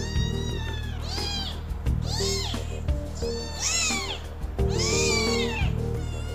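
A young kitten meowing repeatedly, about four high-pitched, arching cries, over background music.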